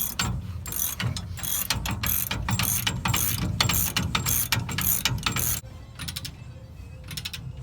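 Hand ratchet clicking in repeated back-and-forth strokes, about three a second, running U-bolt nuts down on a rear axle flip kit; the strokes stop about five and a half seconds in, with fainter clicking near the end.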